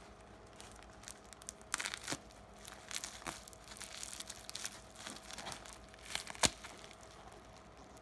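Plastic mailer packaging being torn open and crinkled by hand, with irregular crackling and tearing and a few sharp clicks, the loudest about six and a half seconds in.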